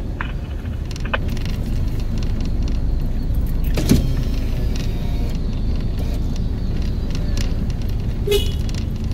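Steady engine and road rumble heard inside a car's cabin as it drives slowly. A sharp click about four seconds in and a short knock near the end.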